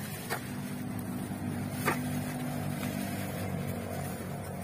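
A steady low mechanical hum, like a small engine running, with two short sharp clicks, one soon after the start and a louder one just before the two-second mark.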